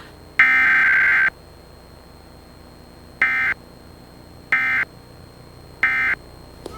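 Emergency Alert System SAME digital data bursts: one longer burst of warbling data tones, then three short bursts about 1.3 s apart, the pattern of the end-of-message code that closes an EAS test.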